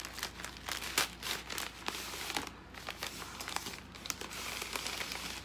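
Packaging being unwrapped by hand: irregular crinkling and rustling with quick crackles, a few sharper ones standing out.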